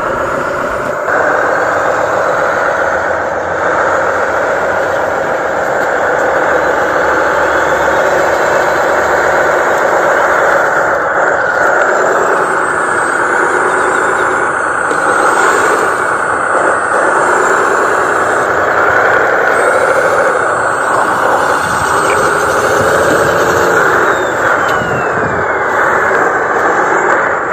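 Radio-controlled model dump trucks driving, their electric motors and gearboxes giving a steady whine that rises and falls in pitch with the throttle.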